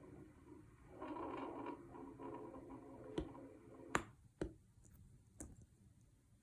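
Faint lung sounds heard through a stethoscope: a soft breathing rush that swells and fades. In the second half come several short, sharp clicks.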